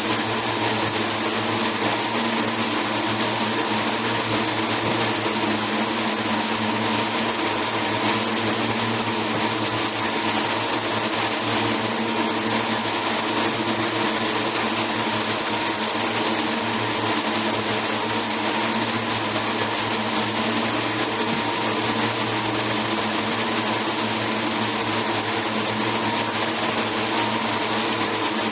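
Textile yarn machines running: a steady, even mechanical whir with a constant hum underneath.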